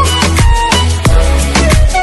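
Background music: an electronic pop song with a steady drum beat and heavy bass, between sung lines.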